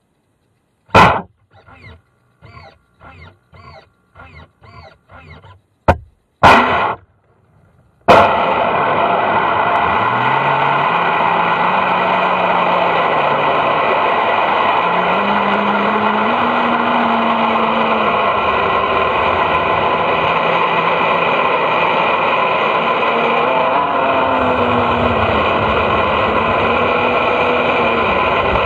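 Onboard sound of an RC superboat. After a few loud knocks and a run of short, evenly spaced pulses, the boat's motor starts about eight seconds in and runs steadily and loud, its pitch wavering as it drives across the lake.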